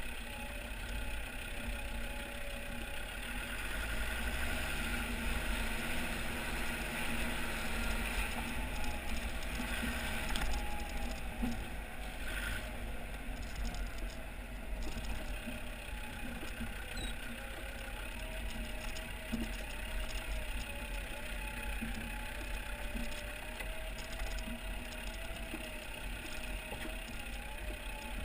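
Land Rover Discovery TD5's five-cylinder turbodiesel running at low revs as the 4x4 crawls over loose rock, with occasional knocks of stones under the tyres.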